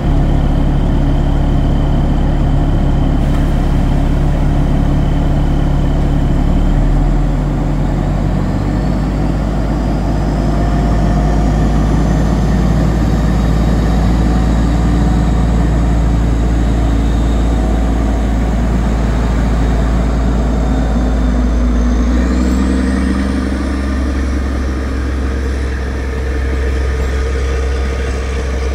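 MÁV Mk45 narrow-gauge diesel-hydraulic locomotive running loudly. Its engine note climbs with a rising whine about a third of the way in and again near the end as the train pulls away.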